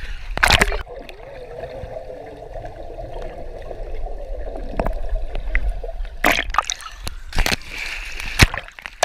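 Pool water splashing around a camera as it goes under the surface. A splash about half a second in, then a muffled underwater stretch, then several splashes near the end as it breaks back through the surface.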